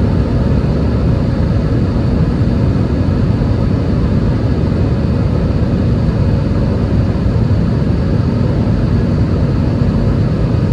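Airbus A320 jet engines running with a steady, loud low rumble that neither rises nor falls.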